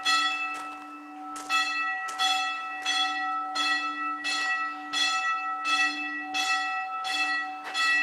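A metal bell struck over and over, about twice a second at an uneven pace, its tone ringing on between strikes.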